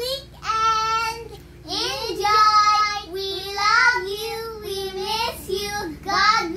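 Two young girls singing a song together, holding drawn-out notes that glide up and down in pitch.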